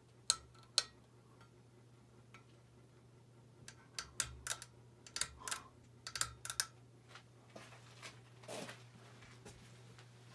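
Hunter Low Profile II ceiling fan with a low steady hum. Over it come irregular sharp clicks: two near the start, a quick cluster in the middle, and a brief rustle later.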